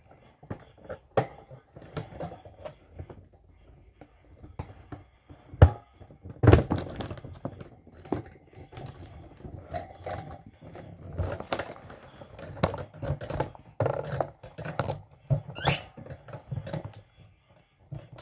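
Irregular knocks and taps, the loudest about five and a half and six and a half seconds in, with a few short high calls from a young parrot.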